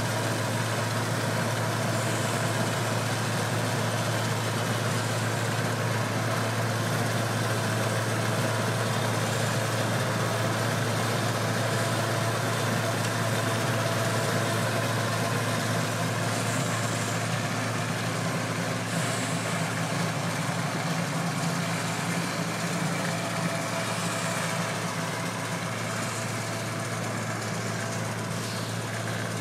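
Small engine of a 1.5-inch-scale rotary snow plow train running steadily while the rotary cuts through snow and throws it aside.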